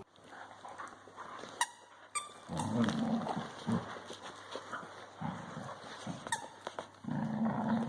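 A dog making low vocal sounds in short, irregular bursts, with a few sharp clicks between them.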